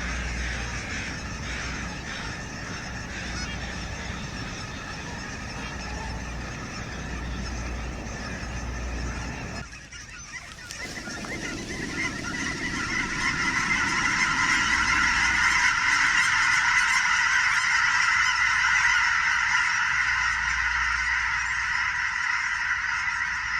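A large flock of migrating birds on a tilled corn field calling all at once in a dense, unbroken din. About ten seconds in the sound breaks off briefly, then comes back louder.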